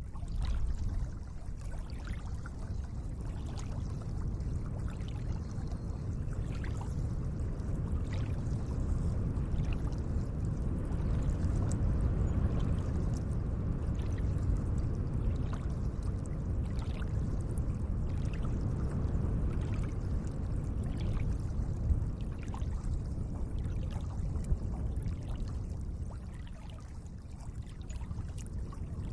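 Lake water lapping and trickling at the shore: a steady wash of moving water with many small splashes and drips scattered through it.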